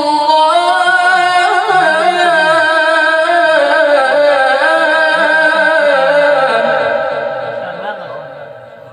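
A man's voice reciting the Quran in the melodic tajwid style, amplified through a microphone, holding one long ornamented note that winds up and down in pitch without a break. It fades away over the last two seconds.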